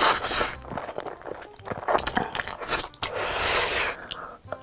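Close-miked eating: noodles slurped from chopsticks with wet chewing and small mouth clicks, a second, longer burst of eating noise about three seconds in, then a bite into sauce-glazed chicken.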